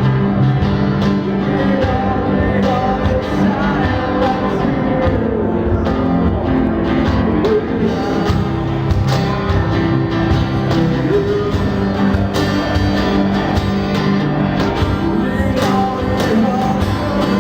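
Live acoustic pop-rock band playing: strummed acoustic guitars with regular cajón hits keeping the beat, and a voice singing.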